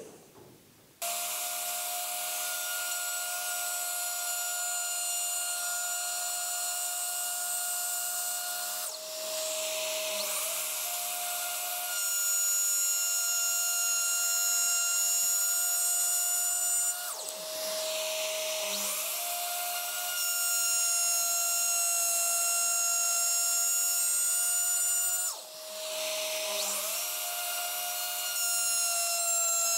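Router with a 9 mm bit running at speed, cutting slots in oak in shallow passes. The motor gives a steady high whine. Three times, about eight seconds apart, the sound drops briefly and the pitch sags before coming back up.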